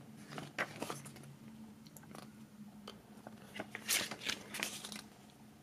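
Pages of a glossy CD booklet being leafed through by hand: soft paper rustles and flicks, with a cluster of louder page flicks about four seconds in.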